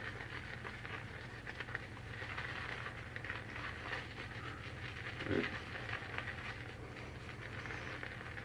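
Semogue 1305 boar shaving brush whipping soap into lather in a small travel jar: a continuous soft, rapid wet swishing and clicking, over a steady low hum.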